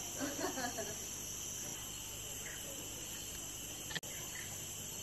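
Steady, high-pitched chorus of forest insects droning without a break. Faint voices in the first second, and a brief dropout with a click about four seconds in.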